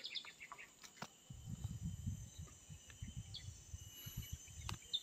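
Outdoor ambience: a bird's quick run of short chirps at the start over a steady high insect drone, then a low rumble from about a second in until near the end, with a few sharp clicks.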